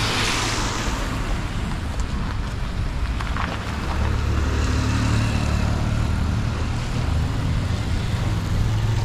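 A car driving past on a wet tarmac road, its tyres hissing through the water and fading within the first second. From about four seconds in, a steady low rumble takes over.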